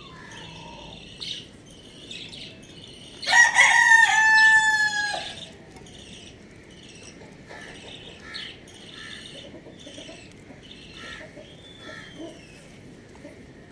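A rooster crowing once: a single loud crow of about two seconds, starting about three seconds in, held on one pitch and dropping at the end. Faint chirps of small birds are heard around it.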